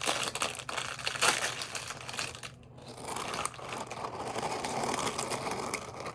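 Plastic packaging crinkling as it is handled, with a steadier rustle over the last three seconds or so.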